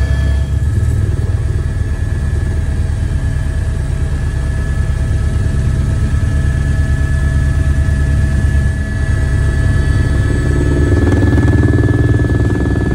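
Helicopter in flight heard from inside the cabin: a loud, steady drone of rotor and turbine with a fast even beat and a steady high whine over it. It swells slightly about ten seconds in.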